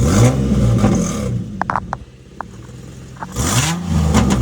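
Infiniti's engine revved twice, each blip rising and falling back, with a few short sharp ticks between the revs. The car has an exhaust leak at a missing bolt.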